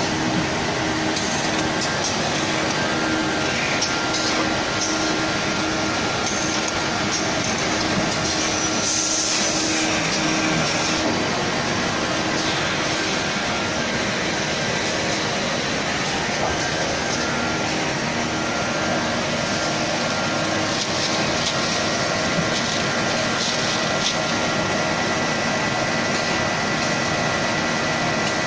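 Automatic facial tissue bag packing machine running: a steady mechanical din with faint steady tones through it, and a brief higher hiss about nine seconds in.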